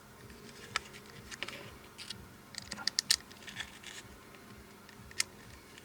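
Scattered small clicks and taps from a disassembled disco-ball lamp's parts being handled and checked for looseness, with a quick cluster of clicks in the middle.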